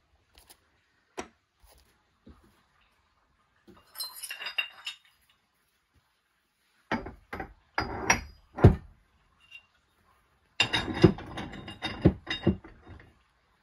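Aluminium ingots clinking and knocking against each other as they are shifted by hand, in three short bursts, the last the longest.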